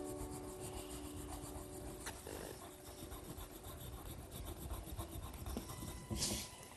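Faint scratching and rubbing of a drawing tool moving over paper, in small irregular strokes, with one louder scratch about six seconds in. The last note of a short music cue fades out in the first second.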